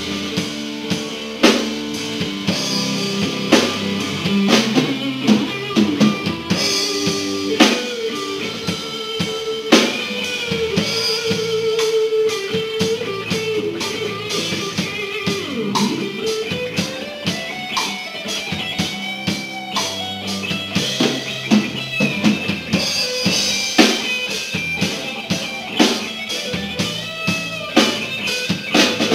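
Live rock band playing an instrumental break: electric guitar lead with sustained, bending notes over a drum kit beat.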